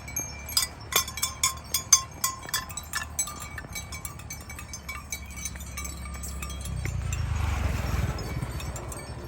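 Cowbells worn by cows clanking and ringing irregularly, many quick strikes in the first few seconds, then fewer. A rushing noise swells about seven seconds in and fades again near the end.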